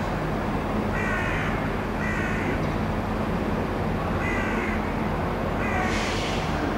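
A crow caws four times, each caw about half a second long, over the steady low running of a Class 67 diesel locomotive's engine as it approaches slowly at low power.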